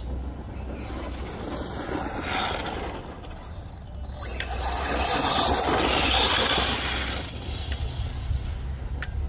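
Arrma Typhon 3S RC buggy running over rough dirt, its tyres and drivetrain giving a gritty mechanical rattle that swells twice as it drives past, the second time louder, with a couple of sharp clicks.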